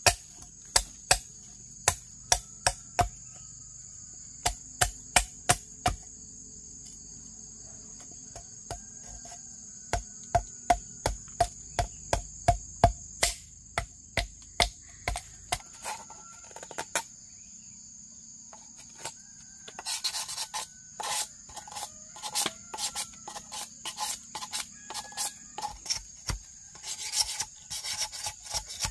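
Sharp knocks in a quick rhythm, about two or three a second, stopping for a few seconds in the middle, then faster rasping, scraping strokes in the last third. A steady high insect buzz runs underneath.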